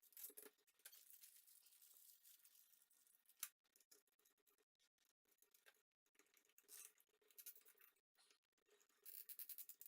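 Near silence: faint rustling and a few small clicks of parts being handled.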